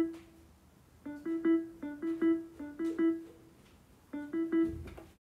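Background music: short, repeated pitched notes in a steady rhythmic figure, with two brief breaks and a fade at the end.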